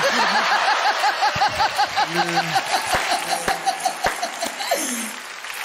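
Audience and panel laughing, led by one high-pitched laugh that pulses about four times a second and trails off in a falling tone near the end.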